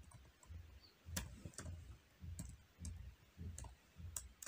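Computer keyboard being typed on: faint, separate keystroke clicks, each with a soft low thud, coming irregularly at about two a second.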